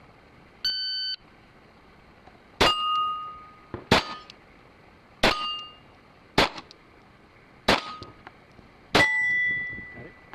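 A shot timer's short start beep, then six pistol shots about a second and a quarter apart. Most shots are followed by the ringing of a struck steel plate, and the longest ring comes after the last shot.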